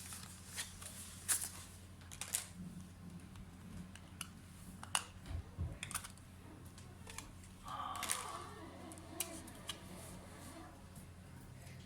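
Irregular clicks of keys being typed on a laptop keyboard, over a steady low hum.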